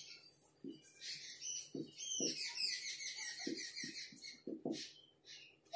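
Writing on a board: a run of high, short squeaks from the writing tip, densest around the middle, with soft taps from the strokes.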